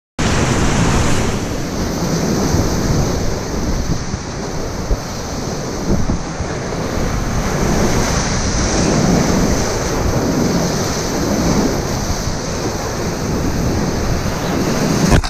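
Loud, steady rushing roar of big whitewater rapids heard from inside them aboard an open canoe, waves breaking close around the boat, with wind rumbling on the microphone.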